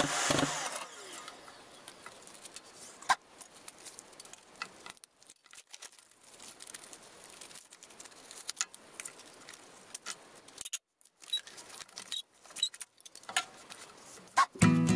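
Band saw cut dying away in the first second, then scattered light clicks and rustling as the sawn wooden pieces and their crumpled tape wrapping are handled and sawdust is brushed off the saw table.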